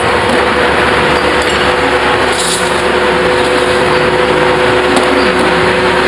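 Metal spinning lathe running with a large sheet-metal dish turning on it: a loud, steady machine noise with a constant hum.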